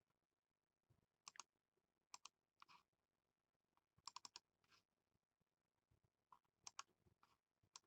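Faint, scattered clicking in small clusters of two to four quick clicks, from working a computer.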